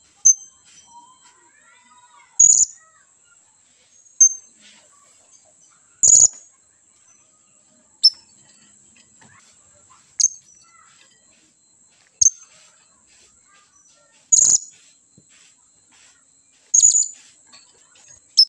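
Young blue-crowned hanging parrot giving short, sharp, high-pitched calls, one about every two seconds, about ten in all: noisy contact calls to summon companions.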